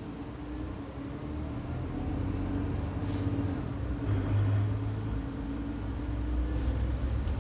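Steady low rumble of room noise with a faint hum running through it, and a couple of faint brief rustles.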